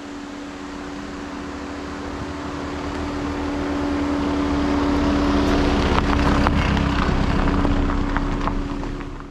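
A steady motor hum at a constant pitch that grows louder over the first few seconds.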